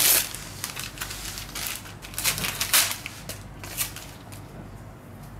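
Crinkling and rustling of a sterile gauze wrapper being handled and opened, a run of irregular scratchy crackles, loudest at the start and again between two and three seconds in.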